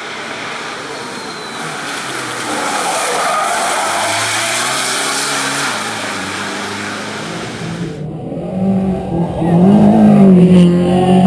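Race-prepared Ford Transit van's diesel engine pulling hard uphill, a loud rush with the engine note rising. About eight seconds in the sound cuts abruptly to a second race car's engine close by, louder and revving, its pitch rising and falling.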